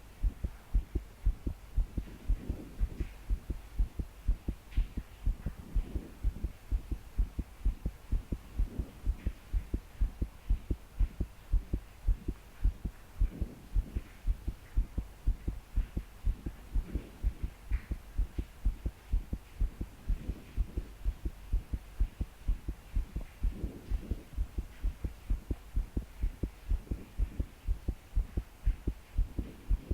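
A young woman's fast, pounding heartbeat: an unbroken, even train of low thuds, the forceful beating of palpitations. Slow deep breaths swell in about every three to four seconds.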